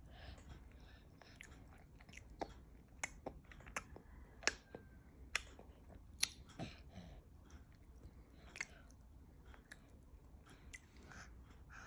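A baby chewing soft omelet, with faint mouth sounds and irregular sharp wet smacks and clicks of the lips and tongue. The loudest smacks come about four and a half and six seconds in.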